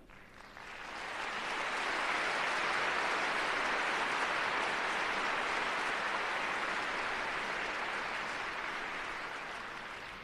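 Dense applause from a crowd, swelling in over the first second or two, holding steady, then fading away near the end.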